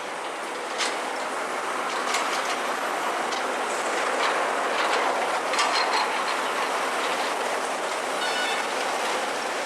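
Steady rattling and clanking of heavy machinery, with scattered sharp clicks and a brief high squeal near the end.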